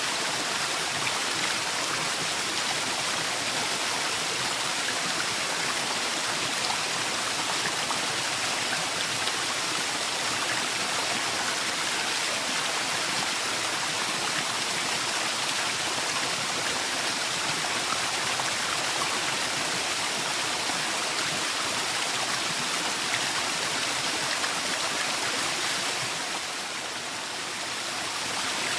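Waterfall: water pouring and splashing in a steady, even rush, easing slightly for a moment near the end.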